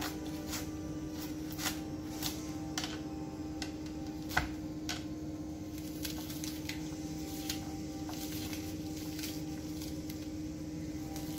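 A knife cutting through a red onion, irregular crisp clicks and ticks as it is diced in the hand, with the odd tap on a plastic cutting board; the sharpest click comes about four and a half seconds in. A steady low hum runs underneath.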